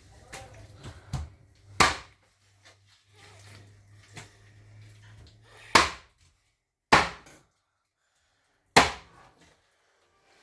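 Knife chopping on a wooden cutting board: four hard, sharp strikes a second or more apart, with a few lighter knocks early on.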